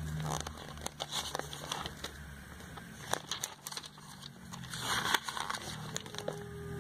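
Glossy catalogue pages turned by hand: repeated short paper rustles and crisp snaps as the sheets are flipped and smoothed down.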